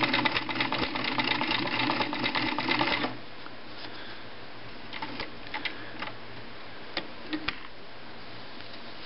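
Pfaff 139 sewing machine stitching fast with a spring-loaded darning foot, free-motion darning a sock, then stopping abruptly about three seconds in. A few light, scattered clicks follow.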